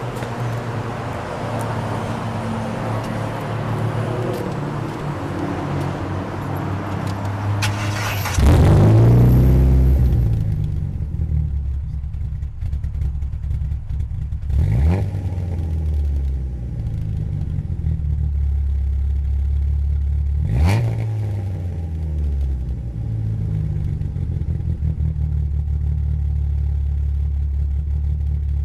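SEAT car's engine idling through its exhaust pipe, with one sharp rev that rises and falls about a third of the way in. Two shorter throttle blips follow, about six seconds apart.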